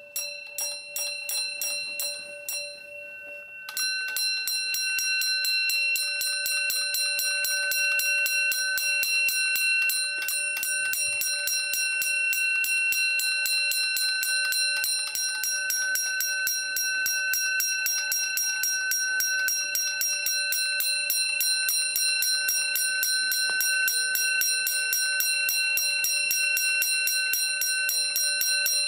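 An 1800s "Fire Cry" spring-wound fire alarm bell ringing, its clapper striking the metal gong. It starts with separate strikes, breaks off briefly, then from about four seconds in settles into a rapid, continuous ring that holds steady, driven by the wound spring.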